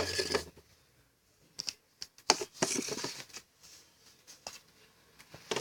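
Light plastic clicks and clatters, scattered and irregular, as pieces of toy food are put back into a toy refrigerator.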